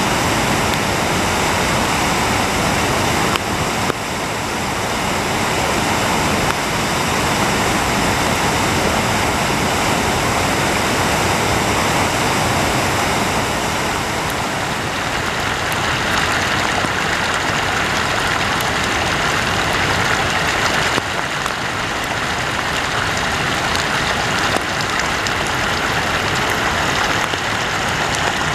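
Floodwater rushing: a swollen, muddy creek running fast over rocks and around tree trunks, a loud, steady rushing of water. The sound grows a little brighter and hissier about halfway through.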